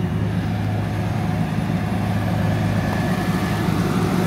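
Tow truck engine idling steadily with a low hum, getting slightly louder toward the end.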